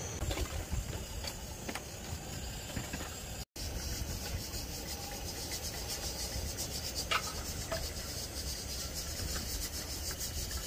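Hot water poured in a thin stream from a gooseneck kettle onto coffee grounds in paper filter drippers, a soft steady trickle over a low hiss. The sound drops out briefly about three and a half seconds in.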